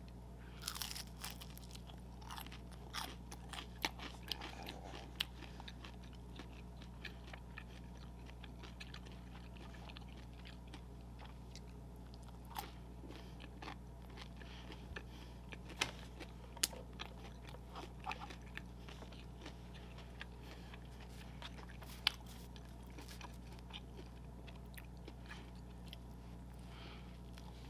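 A person eating McDonald's fast food close to the microphone: crisp crunching bites and chewing at irregular intervals, busiest in the first few seconds, over a steady low hum.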